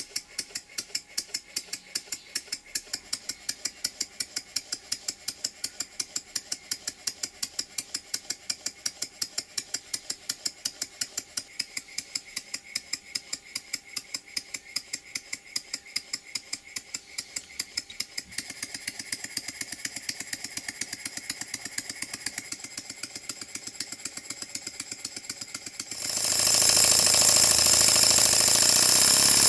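Stuart No. 10V single-cylinder vertical model steam engine running on compressed air, its exhaust beating evenly at about four or five beats a second. Near the end a loud, steady rushing hiss starts suddenly and covers the beats.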